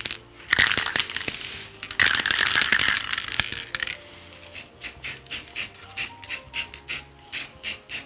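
Aerosol spray-primer can being handled and shaken. Two long stretches of rustling, hissing noise come first, then the can's mixing ball rattles in an even run of sharp clicks, about four a second, through the second half. Soft background music plays underneath.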